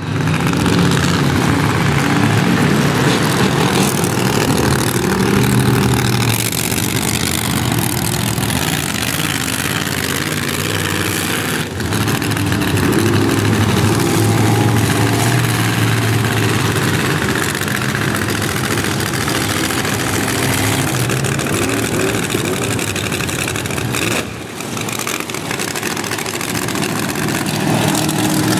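Several monster truck engines running loud, idling and revving as the trucks drive slowly around a dirt arena, their pitch rising and falling. The sound briefly drops about twelve seconds in and again near twenty-four seconds.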